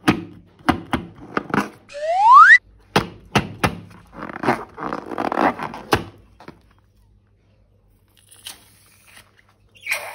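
Balloons and slime being handled: a run of short knocks and squishy, squelching noises, with a brief rising whistle about two seconds in. It goes nearly quiet for the last few seconds.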